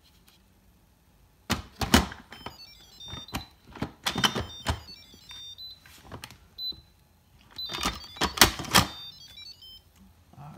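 Instant Pot's lid being set onto the cooker and twisted shut, with several groups of clattering knocks and clicks. In the middle comes a short run of high electronic tones stepping up and down, like a little tune.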